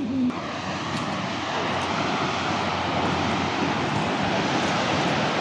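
Steady rushing roar of a high waterfall, Howick Falls, growing a little louder over the first couple of seconds and then holding even.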